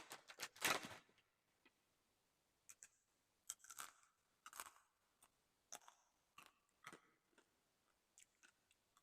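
Crispy chicken-skin chicharon being bitten and chewed close to a condenser microphone: a louder crunch in the first second, then short irregular crunches of chewing.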